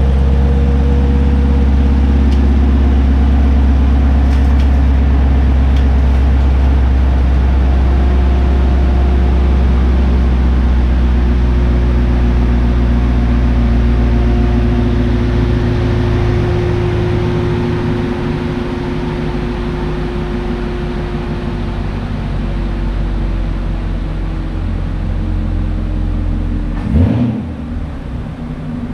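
Camaro SS V8 engine running at low speed with a steady deep drone that eases off a little past the middle. A short sharp knock comes near the end.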